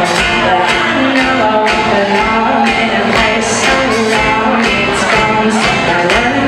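An acoustic rock band playing with a steady drum beat and a singing voice.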